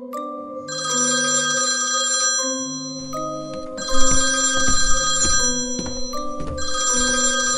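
Mobile phone ringtone ringing: a bright, jingly melody whose phrase repeats three times, with a low beat under it from about three seconds in.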